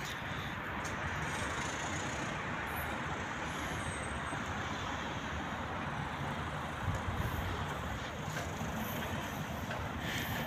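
Steady noise of road traffic passing, with a low rumble that swells briefly about seven seconds in.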